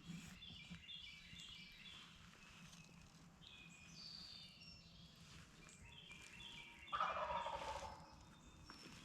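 A wild turkey gobbling once, about seven seconds in: a short rattling gobble, the loudest sound, over songbirds chirping in the dawn chorus.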